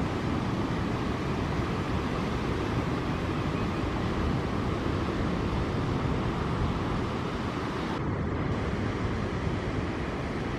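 Steady ocean surf, a constant roar of breaking waves with no distinct single crash. The upper hiss dips briefly about eight seconds in.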